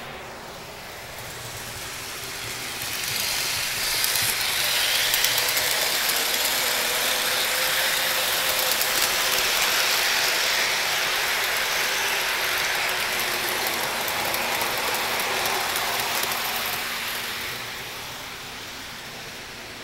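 O-scale model trains running on the layout: the steady rolling and gear-driven motor noise of the locomotives and cars. It swells over the first few seconds, stays loud, and fades near the end.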